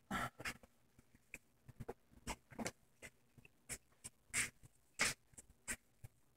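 Pencil scratching on paper in short, irregular strokes, a dozen or more quick scrapes as a small sketch is drawn and shaded.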